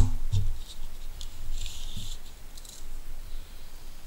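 Light handling noises on a paper-covered table: a few soft taps and clicks, with a short rustling scrape about one and a half seconds in.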